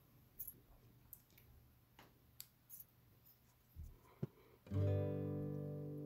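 Faint, scattered clicks and taps of small craft pieces and a plastic glue bottle being handled, then about three-quarters of the way in Celtic background music enters with a plucked chord that rings and slowly fades.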